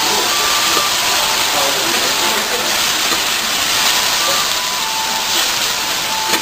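Fried noodles sizzling on a hot griddle, with water just added, making a steady, loud hiss of frying and steam.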